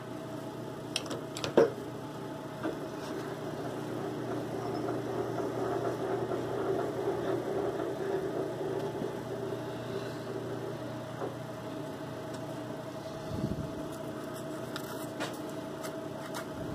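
A machine with a straight cutter bit running steadily, cutting away metal; its hum swells through the middle and eases off, with a low thump late on.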